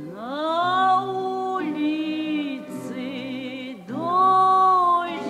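Music: a solo voice sings long wordless notes, twice sliding up from low into a sustained note with vibrato, over a steady held drone.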